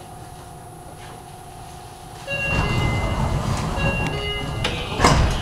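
Commuter train car's passenger doors opening at a station stop, about two seconds in: over the car's steady low hum, a sudden rush of air and sliding noise starts, with a few short high tones, and ends in a sharp knock near the end.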